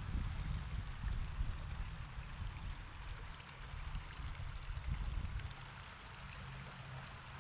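Steady rushing water, as of a stream or waterfall, with an uneven low rumble underneath that eases off in the second half.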